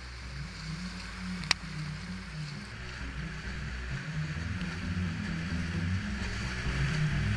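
Background music with a moving bass line, over a steady rushing hiss of river whitewater. A sharp click about one and a half seconds in.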